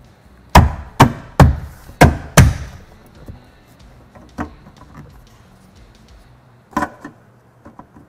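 Headrest mounts being tapped down by hand into the top of a pickup's rear seat back: a quick run of five sharp knocks in the first two and a half seconds, then a single knock and a couple more later.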